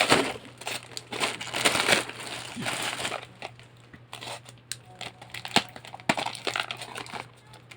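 A parcel's packaging being handled and opened: crinkling and crunching for the first three seconds or so, then quieter rustling with a few sharp clicks.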